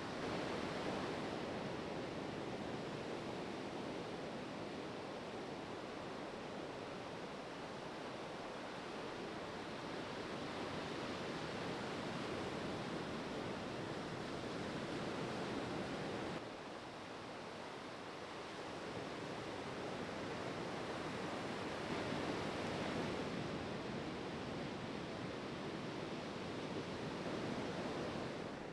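Ocean surf washing on a beach break: a steady rush of breaking waves that swells and eases, dropping suddenly about sixteen seconds in.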